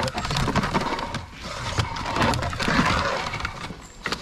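Wooden cable drum turning on its stand as 6mm five-core steel-wire-armoured cable is paid out and pulled along paving slabs: a rattling scrape with many small knocks, dipping briefly about a second in and again near the end.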